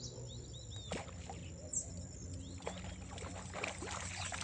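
Water splashing in short bursts at the surface, several times, with birds chirping.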